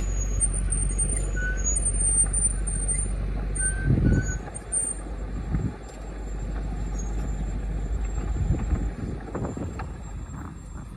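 Excavator's diesel engine running under load, with a few heavy thumps about four seconds in and again near the end; the engine rumble fades out towards the end.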